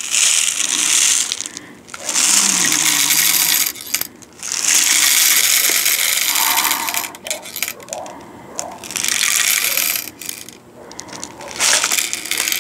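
Copper-coated steel BBs poured from their container into the loading port of a Daisy Red Ryder BB gun, rattling in about five runs of one to three seconds with short pauses between.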